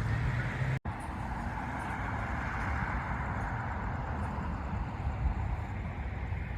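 Steady outdoor rushing noise with a low rumble, broken by a short drop-out in the audio about a second in.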